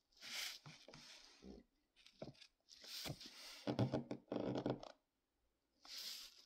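Glossy magazine pages rustling and crinkling as they are handled and turned close to the microphone, in several bursts, loudest a little past the middle, with another rustle near the end.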